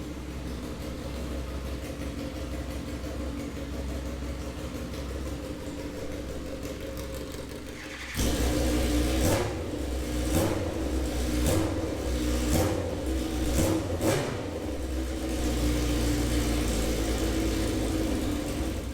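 2006 Suzuki GSX-R1000's inline-four engine running freshly rebuilt: steady idle, then about eight seconds in it gets louder with about six quick throttle blips before settling back into a steady run. The owner says it runs and sounds good.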